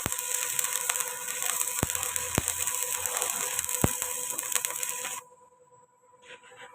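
Welding arc crackling and hissing steadily with occasional sharp pops, then cutting off abruptly about five seconds in as the arc is broken.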